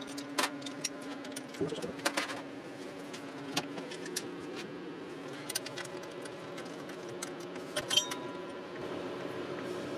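Irregular metallic clicks and clinks of a hand spanner working on the alternator's mounting bolts as they are tightened onto the bracket, louder in a cluster near the end.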